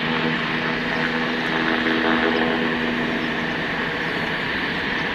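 A steady mechanical drone with a strong hiss, like a motor or engine running. Its low hum fades out about three and a half seconds in while the hiss carries on.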